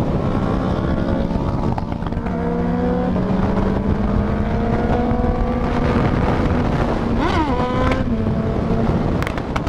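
Motorcycle engine running at road speed under the rider, with wind and road noise. Its note holds, then climbs slowly as the bike pulls in gear. There is a brief rise and fall about seven seconds in, and the note dips a little just after.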